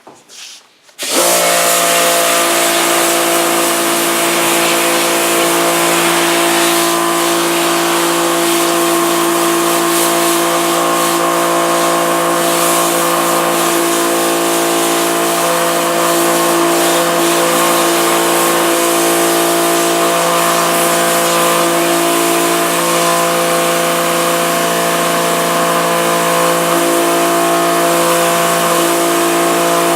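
A pressure washer cuts in about a second in and then runs steadily. The pump motor hums under the hiss of the water jet blasting a screen-printing screen to strip off the stencil.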